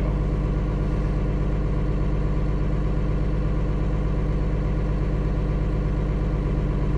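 Cummins inline-six turbo diesel running steadily at a raised idle of about 1,000 rpm, heard from inside the cab. It is shortly after start-up, with the intake grid heaters on and loading the alternator.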